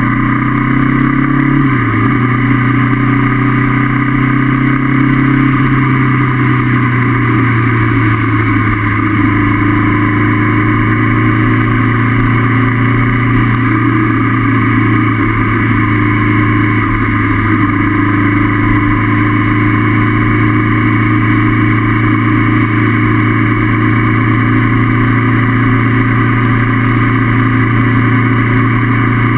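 Honda CB500F's parallel-twin engine running at steady riding revs under a constant rushing noise. The revs dip briefly about two seconds in, then hold steady.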